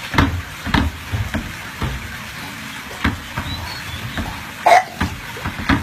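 English bulldog making a series of short, sudden noises at irregular intervals, the loudest about four and a half seconds in.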